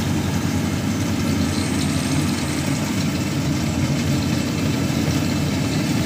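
Rice combine harvester's engine running steadily as it harvests, a low, even drone that doesn't change.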